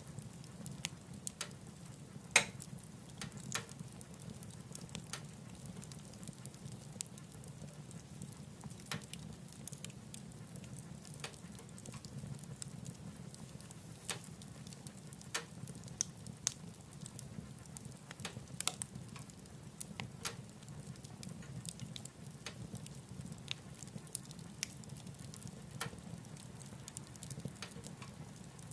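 Wood fire burning in a wood stove: irregular sharp crackles and pops, the loudest about two seconds in, over a steady low rumble of the flames.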